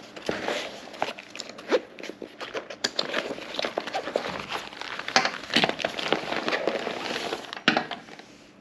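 Rustling and crinkling of a roll-top nylon Faraday dry bag being handled and unrolled by hand, with many irregular crackles and small clicks; it stops near the end.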